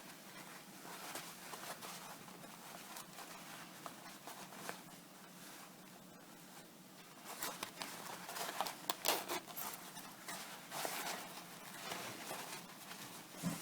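Fabric rustling with small scrapes and clicks of a metal trouser zipper being handled during its repair. Louder scraping comes in bursts from about seven seconds in, and there is a sharp click near the end.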